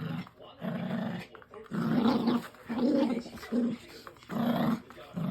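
Dog play-growling while tugging on a toy: a string of short, throaty growls, about six in quick succession.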